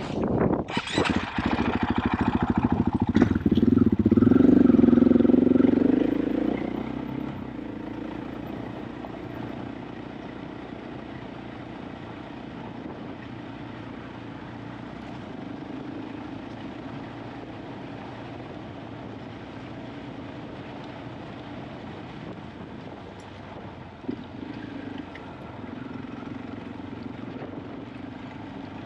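KTM 500 EXC-F single-cylinder four-stroke enduro engine revving up loudly for the first several seconds, then dropping back to a steady, much quieter low-rev running.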